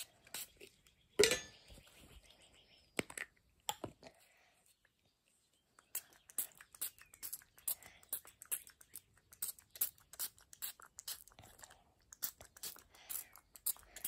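Irregular run of sharp clicks and crunchy snaps from small hard objects being handled, with a pause of about two seconds partway through.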